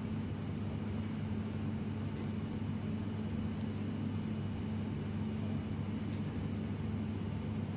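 Steady low hum of room background noise, a constant drone with no other events.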